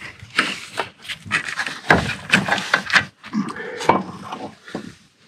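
Clatter of metal parts and hand tools being handled on a BMW N55 engine's crankshaft damper pulley and its bolts: a quick run of sharp clicks and knocks, with a short pitched rubbing sound about three and a half seconds in.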